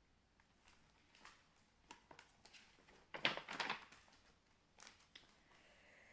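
Pages of a picture book being turned and handled: faint paper clicks, then one louder rustle of paper about three seconds in.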